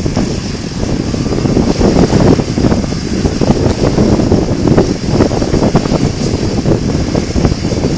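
Strong wind buffeting the microphone in loud, uneven gusts, over the running turboprop engines of a de Havilland Canada DHC-6 Twin Otter taxiing on the sand, with a thin steady turbine whine high above.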